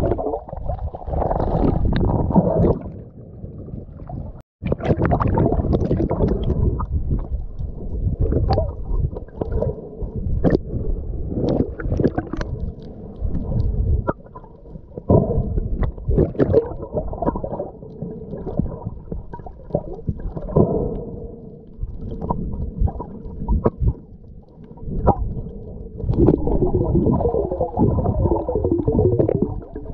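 Muffled, dull gurgling and sloshing of water, with scattered knocks and clicks.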